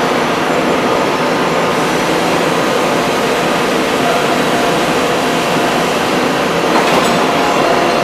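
Steady mechanical din of a 3-ton hydraulic open die forging hammer plant running, with faint steady tones and no distinct hammer blows, apart from one faint knock about seven seconds in.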